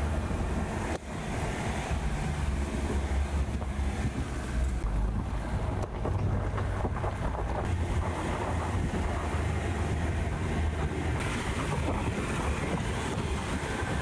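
Camper van driving on a dirt and gravel road: a steady low rumble of tyres and engine with wind buffeting the microphone, turning hissier from about eleven seconds in. The tyres are still inflated hard for pavement and scrabble over the gravel.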